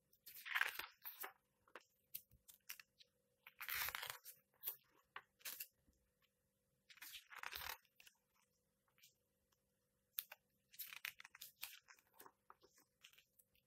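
Glossy pages of a hardcover comic book being turned by hand, the paper swishing and crinkling in several short bursts with quiet gaps between them.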